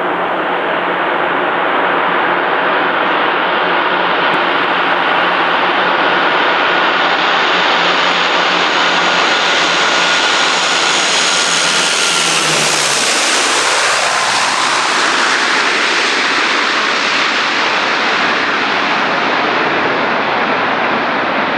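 An ATR-42 turboprop airliner passing close by, its engines and propellers running loud and steady, with whining tones that fall in pitch as it goes past about twelve to thirteen seconds in.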